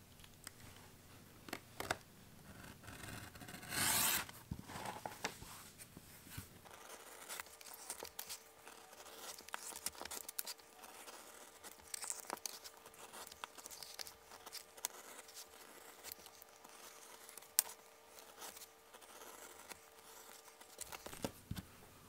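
Snap-off utility knife slicing through thick vegetable-tanned leather on a cutting board: faint scratchy, rasping cuts, with one longer, louder stroke about four seconds in. From about seven seconds in the cutting is sped up, so the strokes come in quick, compressed runs.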